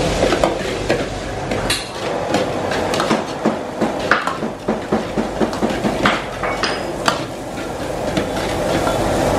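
Metal ladle scraping and knocking against a steel wok during stir-frying: a quick, uneven run of clinks and taps, busiest in the middle, over a steady background rush.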